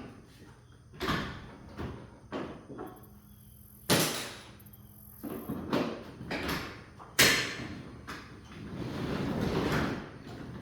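Metal knocks and clanks from work on a sectional garage door's hardware, with two loud sharp bangs about four and seven seconds in and a longer rattling stretch near the end.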